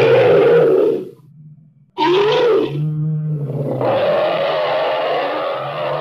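Dinosaur roar sound effects: a long roar ends about a second in, and after a short gap a new roar starts about two seconds in, drops lower for a moment, then swells into a long, sustained roar.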